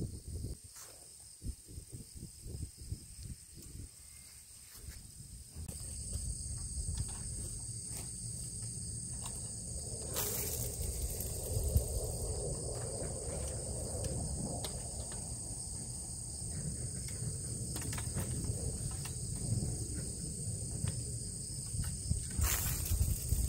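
Insects shrilling in steady high tones, louder from about six seconds in, over rustling and knocks from movement close to the microphone.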